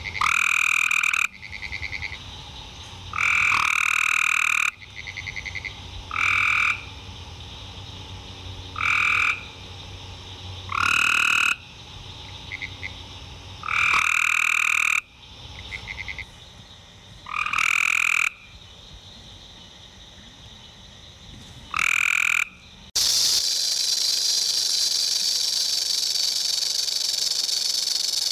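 Frogs calling: loud trilled calls of about a second each, repeated every two to three seconds, with fainter calls between them. About 23 s in this gives way abruptly to a rattlesnake's steady, high rattle buzz.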